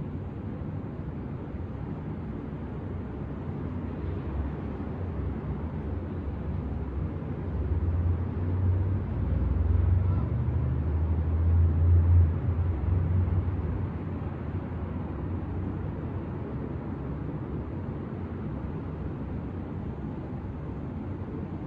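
City traffic noise heard from above the street: a steady low rumble, with a heavy vehicle passing that swells in the middle, peaks and fades away.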